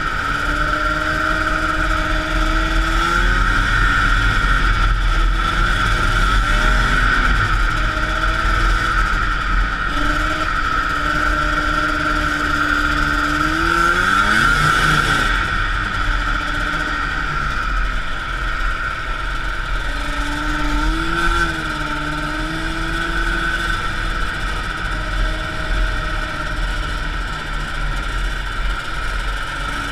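A 1979 Arctic Cat El Tigre 6000 snowmobile's liquid-cooled Suzuki 440cc two-stroke engine running under way. Its pitch rises and falls again and again as the throttle is worked, with one deep dip and climb about halfway through.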